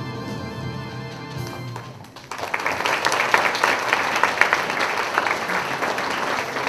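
The song's last held chord fades out, and about two seconds in an audience breaks into applause, many hands clapping steadily to the end.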